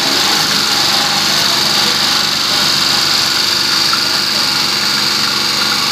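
Suzuki Alto's three-cylinder engine idling steadily while its water pump pushes a stream of flush water out of the open thermostat housing, splashing into the engine bay.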